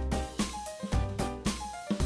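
Background music with a steady drum beat, bass and a keyboard-like melody, with a short drum fill near the end.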